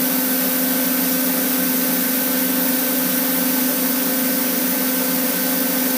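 Steady hiss of leftover shielding gas purging out of a TIG welding torch after the cylinder is shut off, over the steady hum of the running welding machine.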